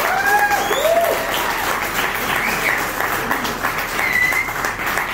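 A small audience applauding, with one person clapping close by, and a few voices calling out over the clapping in the first second or so.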